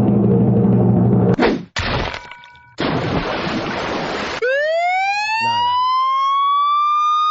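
Sound-effects mix: a drum roll for about a second and a half, then short bursts of noise, then a siren-like tone that rises steeply about four and a half seconds in and levels off, held to the end.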